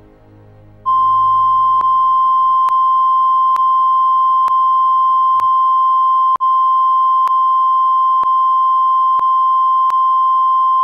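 Soft music fades out, then a loud, steady, high-pitched electronic tone starts about a second in and holds at one pitch, with a faint click roughly once a second and one brief dropout partway through.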